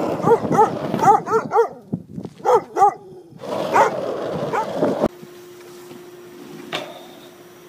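Large dog barking in a rapid run of short barks, about five in the first two seconds, with two more shortly after. About five seconds in, the barking gives way to a steady low hum under a haze of noise.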